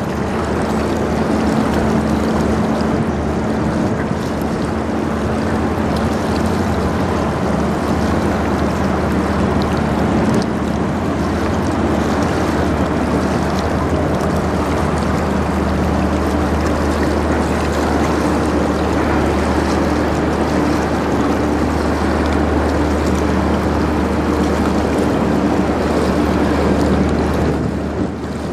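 The CSL St-Laurent, a 738-foot Great Lakes bulk carrier, passing close by: a steady low engine drone with a few held tones, over a constant rush of water and wind. The tones shift slightly higher about halfway through as the stern draws near.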